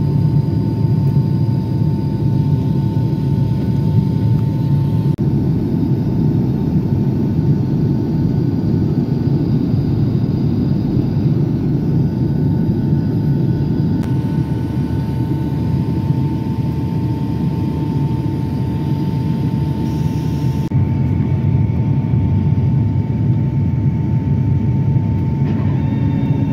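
Boeing 757-200 cabin noise heard from a window seat over the wing: the steady, deep rumble of the jet engines and the airflow, with a faint steady hum running through it.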